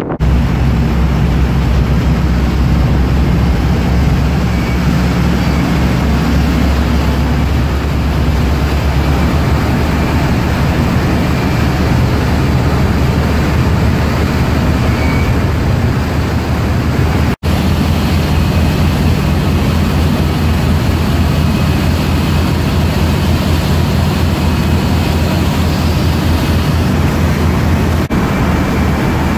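A ferry's engine running steadily with a low hum, under the rush of wind and the churning water of the wake. The sound cuts out for an instant just past halfway.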